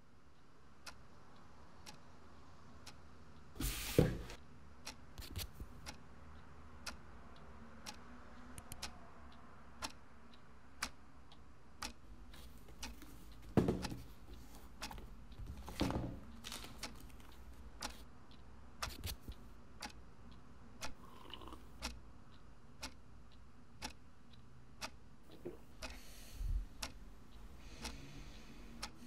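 A clock ticking steadily, about once a second, over a low background hum, with a few louder thumps standing out at intervals.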